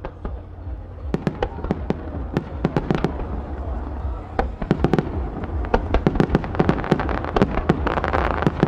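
Fireworks display: a rapid series of sharp shell launches and aerial bursts, several bangs a second from about a second in, thickening into a dense crackle near the end.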